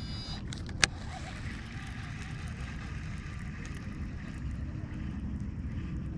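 Baitcasting reel being cranked to retrieve a cast lure: a sharp click about a second in, then a faint steady whir, over a steady low rumble.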